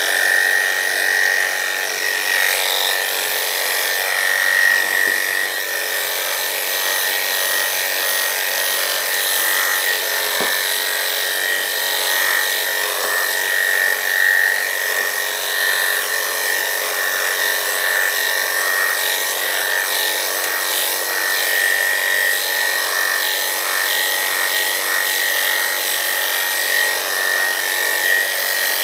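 Electric dog clippers running with a steady high whine as the blade cuts through a standard poodle's long, unwashed coat in a pre-clip shavedown.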